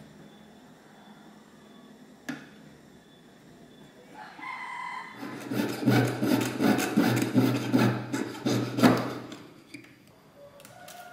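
Jeweller's saw cutting through a silver ring held on a wooden bench pin: a run of quick, rasping back-and-forth strokes, several a second, lasting about four seconds from about five seconds in. A single sharp tap comes about two seconds in.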